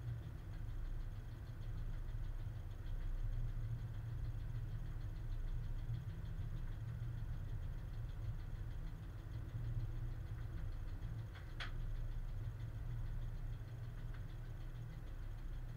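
Steady low rumble in the cab of a ČD Cargo class 130 electric locomotive under way with a heavy freight train, with one short click late on.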